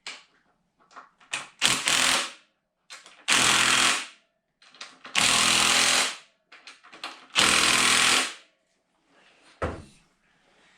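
An impact driver hammering on the handlebar clamp bolts in four short bursts, with small clicks of handling between. The bursts are kept brief because the clamps are aluminium and mustn't be over-tightened.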